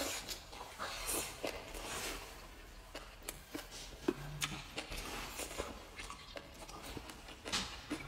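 Close-up eating sounds: food slurped in and chewed, with short clicks of wooden chopsticks on the plate scattered throughout.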